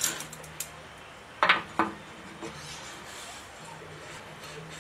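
A few sharp metal clinks, the loudest about a second and a half in with a smaller one just after, as a piston is handled and tried in a cylinder bore of a Willys L134 engine block. A faint low hum runs underneath.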